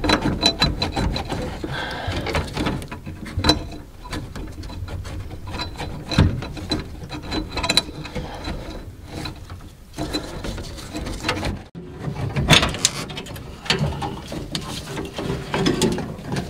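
Irregular clicks, rattles and scraping of the 1972 Chevy C10's old dash wiring harness and its plastic connectors being tugged and worked loose under the dashboard.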